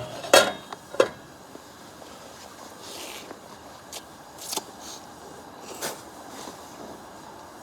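Cooking utensils knocking and scraping against a pot and bowl while soup is served: three sharp clinks in the first second, then a few softer, brief scrapes.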